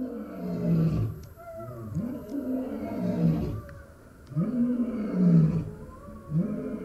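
Lion roaring: a series of deep roars, each about a second long and rising then falling in pitch, with short pauses between them.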